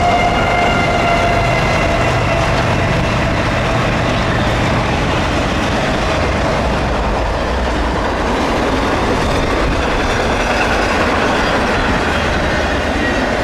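CSX diesel freight locomotives passing with an engine rumble and a whine that falls slightly in pitch over the first few seconds. Double-stack container cars then roll steadily by with wheel and rail noise.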